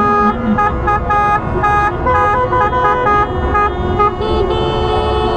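Car horns honking in celebration, several at once, in a rhythmic pattern of short toots at more than one pitch over steady street noise. About four seconds in, a long held horn blast takes over.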